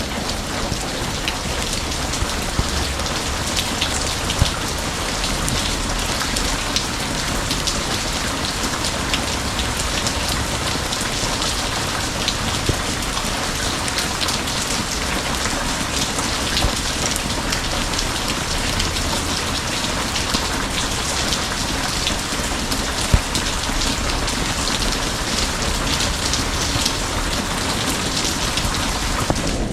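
Steady rain falling and pattering on a surface: an even hiss full of small drop ticks, with a few sharper single taps.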